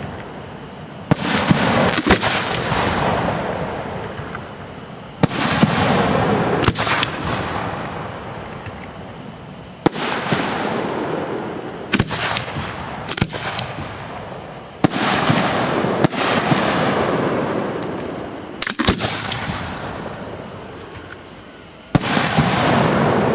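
Aerial fireworks shells bursting one after another, about a dozen sharp bangs, several coming as quick double cracks. Each bang trails off in a long fading rumble lasting a few seconds.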